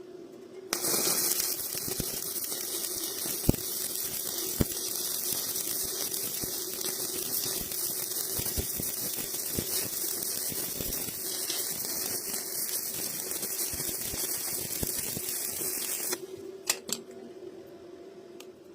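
Electric arc welding on iron rods: a steady crackling sizzle that strikes up about a second in and cuts off sharply near the end, leaving a steady hum and a few clicks.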